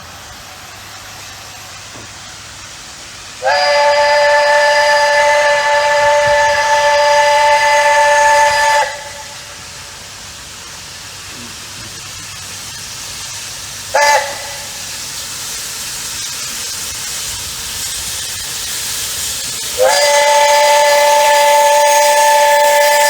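Chime whistle of a 1931 coal-burning 0-6-0 tank steam locomotive, several tones sounding together. It blows a long blast of about five seconds, then a short toot, then another long blast: the end of the long-long-short-long grade-crossing signal. Between the blasts a hiss slowly grows louder.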